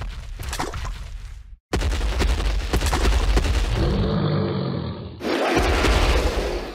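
Dinosaur sound effects: heavy low thuds, then deep growling roars from about four seconds in, cut off sharply just under two seconds in and again near the end.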